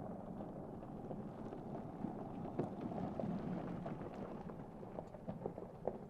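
Tyres of an electric pickup truck rolling over rough dirt and gravel, a steady crunching rumble with scattered sharp knocks of stones.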